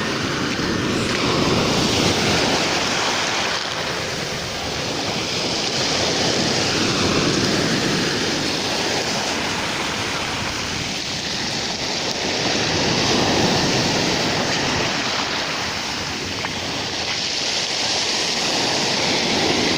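Rough Black Sea surf: waves breaking and washing on the shore, the rush of water swelling and falling every few seconds.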